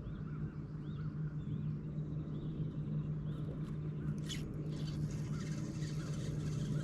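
Birds calling with short chirps repeated about every half second over a steady low hum; a rushing hiss joins about four seconds in.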